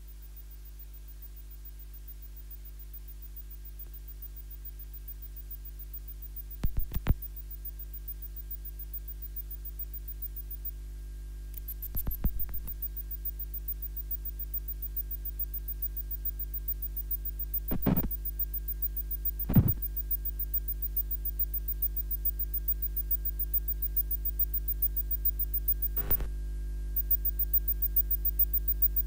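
Low, steady electric hum that slowly grows louder, with a handful of short sharp knocks at irregular intervals.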